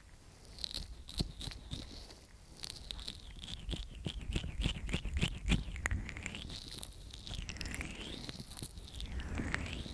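Oily fingers massaging and rubbing ear-shaped binaural microphones up close: slick, wet rubbing with many small crackling clicks and slow whooshing sweeps as the hands move over the mic.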